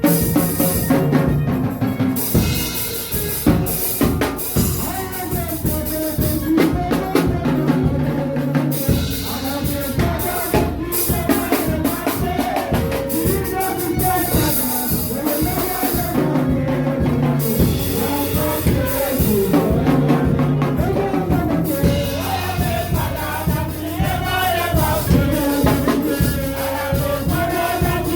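Gospel music with a drum kit beat and singing voices.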